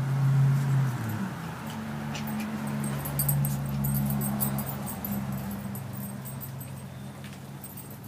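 Puppies growling as they tussle over a treat: a low, steady growl that breaks off about a second in, then starts again and carries on.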